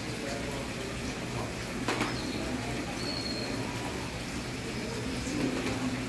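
Steady rush of running water inside a bird aviary, with one short high bird whistle about three seconds in and a sharp click about two seconds in.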